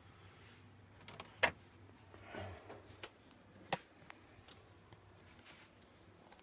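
A few sharp clicks and knocks from 1:50 scale model wheel loaders being handled and set down on a hard surface, with a brief rustle between them. The sharpest knock comes about a second and a half in.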